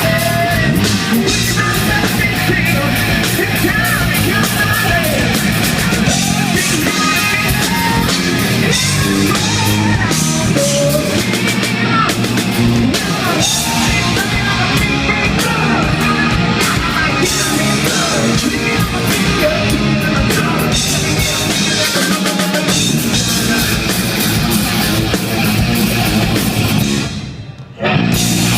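Hard rock band playing live and loud, with electric guitars and a drum kit. Near the end the sound briefly drops away, then cuts back in sharply.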